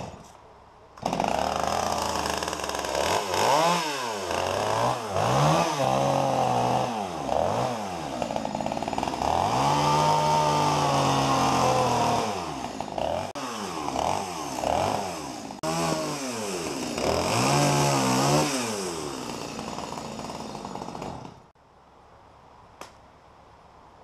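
Gasoline chainsaw starting about a second in and then cutting limbs off a felled tree, its engine pitch repeatedly dipping under load and climbing back as it revs between cuts. It stops a few seconds before the end.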